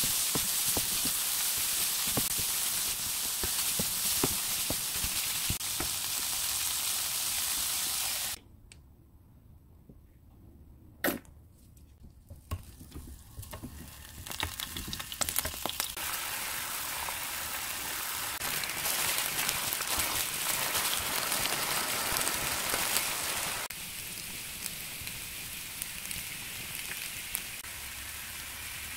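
Oil sizzling in a frying pan as sliced onion, peppers and ham are stir-fried, with light ticks of the spatula against the pan. It cuts off suddenly to near quiet with a single sharp click, then a fresh sizzle builds as potato slices fry in oil in a double-sided pan, steady, dropping to a softer sizzle about three-quarters of the way through.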